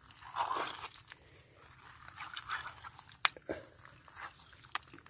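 Footsteps on a muddy riverbed littered with dry reed stalks and sticks: irregular crunches with a few sharp snaps, the loudest about three seconds in.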